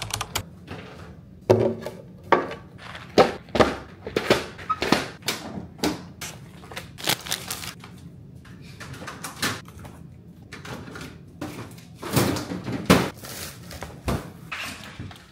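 Groceries being put away in a kitchen: an irregular run of knocks, thunks and rustles as bottles and packages are handled and set down and the refrigerator door is worked.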